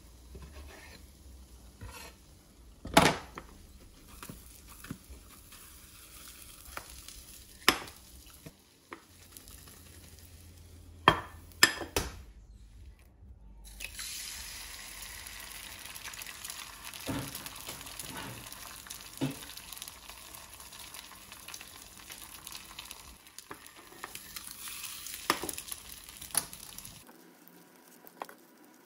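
A knife knocking sharply against a wooden cutting board while a burger bun is sliced. About halfway through, an egg is cracked into a small frying pan and sizzles steadily in the hot fat, with a few taps.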